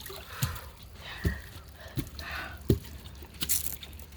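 Microphone handling noise: four or five soft low bumps less than a second apart, with light rustling and a brief hiss near the end.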